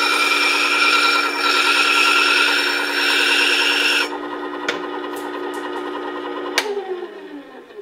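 Motorized horizontal disc sharpener running, with a steel hand-plane chip breaker ground against its abrasive disc to curve the edge: a steady motor hum with a harsh grinding noise for about four seconds, then the hum alone once the steel is lifted off. A click comes near the end, and the motor winds down with falling pitch.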